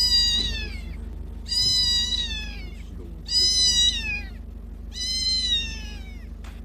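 Tiny orange tabby kitten meowing repeatedly: four high-pitched cries, each about a second long and falling in pitch at the end, coming roughly every second and a half.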